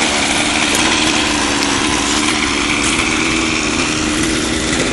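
Nitro glow engine of an Align T-Rex 700N RC helicopter idling steadily.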